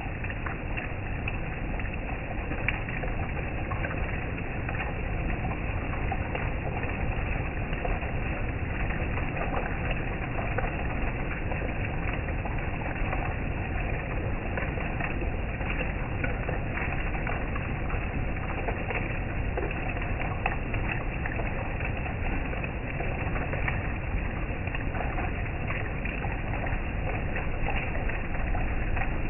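Heavy rain falling steadily, a constant patter of many small drop taps.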